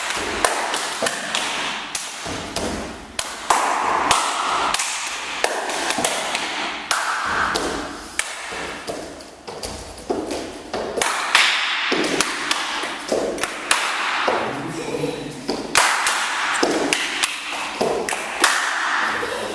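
Body percussion: claps, body slaps and foot stomps on a wooden floor in a quick, uneven rhythm of sharp taps and thuds.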